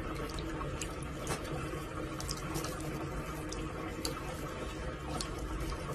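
Tap water running in a steady stream, with scattered soft wet clicks of a cat lapping at it.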